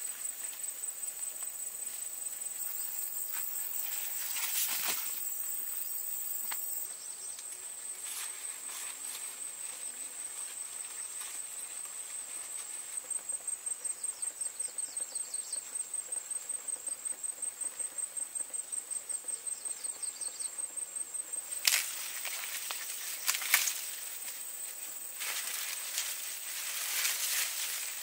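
A steady high-pitched insect trill, pulsing about five times a second for several seconds mid-way. Over it come scattered rustles and a few sharp snaps in the second half, consistent with corn plants being handled during harvest.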